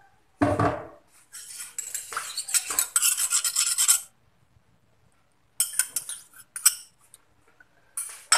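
Metal kitchen utensils and pots clinking and clattering: a heavy knock about half a second in, a stretch of rattling clatter, then a few sharp clinks near the end.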